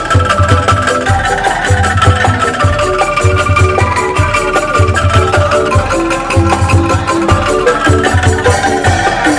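Bamboo angklung and calung street ensemble playing an upbeat instrumental: quick mallet-struck bamboo notes over drums and a steady pulsing bass.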